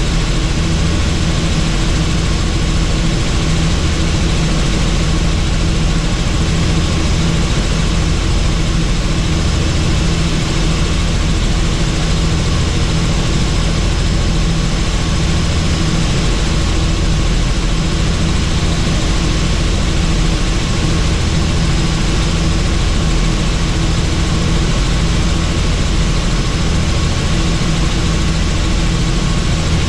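Helicopter in flight: a steady, loud drone of engine and rotor, with a faint high whine above it.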